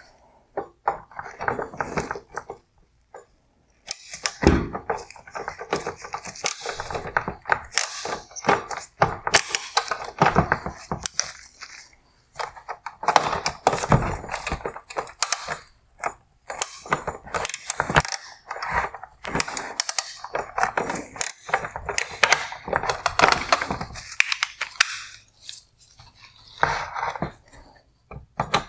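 A number 5 hex socket working the projector bracket's three mounting clips a quarter turn each inside a plastic Bi-Xenon headlight housing: irregular clicking, knocking and plastic clatter, with a few short pauses.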